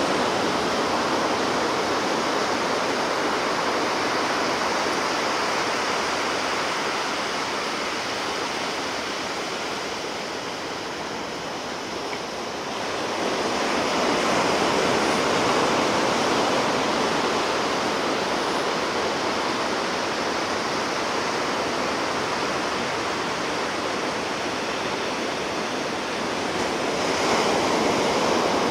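Sea waves breaking and washing on the shore, a continuous rushing surf whose level swells and eases slowly, dipping around the middle and surging again about halfway through and near the end.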